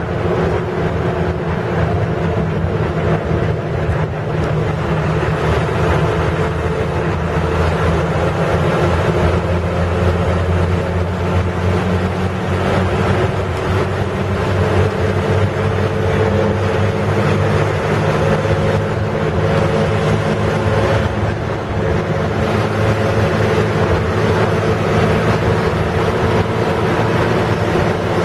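Bus diesel engine running steadily at cruising speed, heard from inside the cabin, with road and wind noise.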